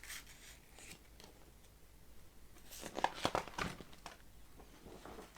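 Paper rustling and crinkling as a page or picture card is handled, in short faint bursts with the busiest stretch about three seconds in.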